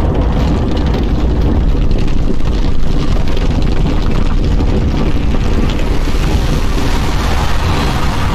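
Massive underground mine explosion in its aftermath: a loud, sustained deep rumble as earth and debris rain down.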